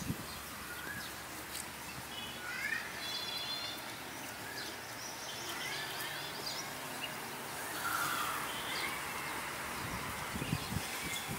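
Small birds chirping on and off over steady outdoor background noise. Near the end come a few short tearing crunches as a cow crops grass and leaves close by.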